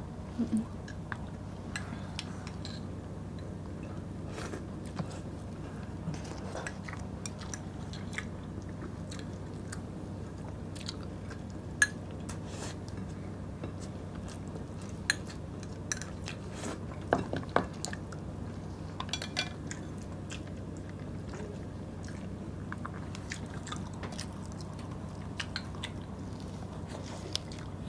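Close-up eating sounds: chewing of rice and canned tuna in sauce, with metal spoons clinking against small glass bowls in a few sharp clicks scattered through. A steady low hum sits underneath.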